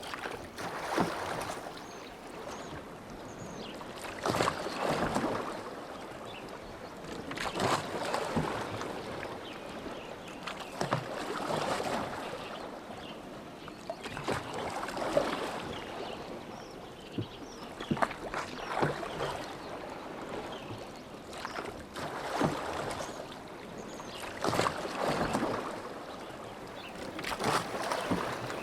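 Oars of a rowboat dipping and pulling through lake water, splashing in a steady rhythm of about one stroke every three and a half seconds, with a few sharp knocks among the strokes.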